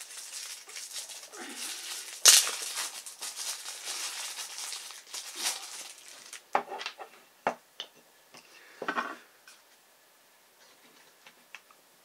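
Hands rustling and handling small plastic parts, with a sharp click about two seconds in, then a few light clicks and taps as a starship model is fitted onto its clear plastic display stand.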